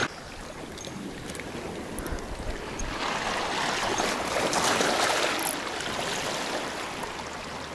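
Small sea waves washing against shoreline rocks, a swell of rushing water that builds about three seconds in and eases off again.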